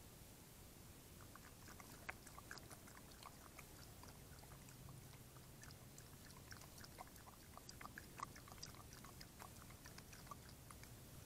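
Coyote lapping water from a bowl: faint, quick, irregular wet clicks that start about a second in and keep going.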